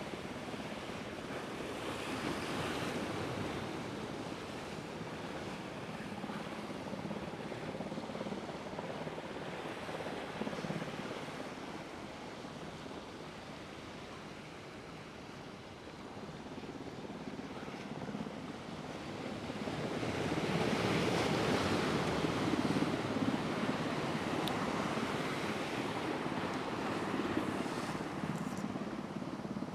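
Rough ocean surf breaking and washing against a rock jetty: a steady rush that swells a couple of seconds in and again, louder, about twenty seconds in.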